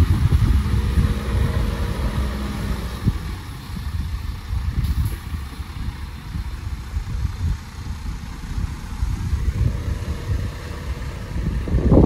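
Diesel engine of heavy earthmoving machinery running. Its steady hum is louder for the first three seconds, eases off after that, and picks up again near the end.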